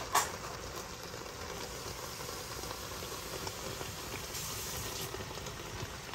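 Brown stew sauce bubbling steadily in a pot on the stove, a little water just added to it. A brief sharp sound, the loudest moment, comes right at the start.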